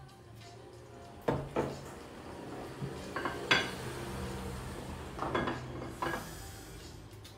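Bowls and chopsticks knocking and clinking on a table as tableware is handled. There are scattered sharp knocks, two close together about a second in and the loudest about three and a half seconds in.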